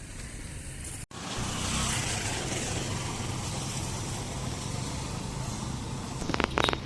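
Outdoor street noise with a motor vehicle's engine running steadily. The sound cuts out briefly about a second in, and a few sharp clicks come near the end.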